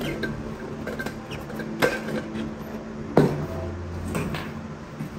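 A few knocks and clinks from a stainless steel travel mug being handled, the sharpest about two and about three seconds in, over a steady low hum.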